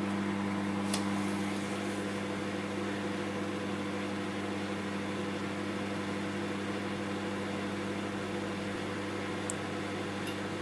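Microwave oven running on high power with a mug cake inside: a steady hum with a constant low drone over fan noise, and a few faint ticks.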